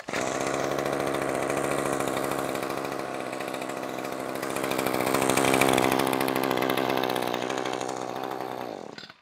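Gas string trimmer engine running on a repair stand, growing somewhat louder around five to six seconds in, then cutting off shortly before the end.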